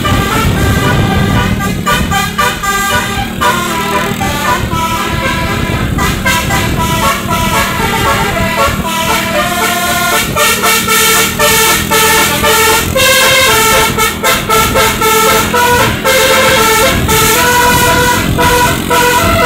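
Bus's telolet 'Basuri' musical horn playing a tune in short stepped notes, over the rumble of the bus.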